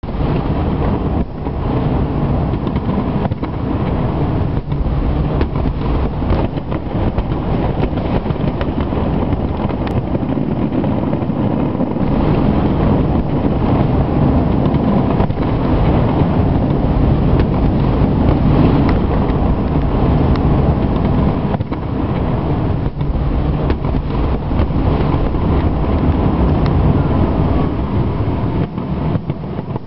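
Fireworks display with many shells bursting in quick succession: a steady low rumble of overlapping booms with frequent sharp cracks.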